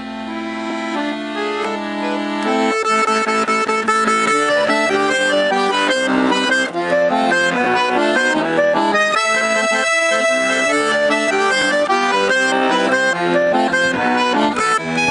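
Bayan (Russian button accordion) playing an instrumental tune: a few held chords, then a fast, busy melody from about three seconds in.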